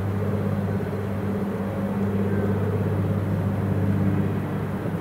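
Propeller airplane engine droning steadily, a low even hum with a few steady overtones.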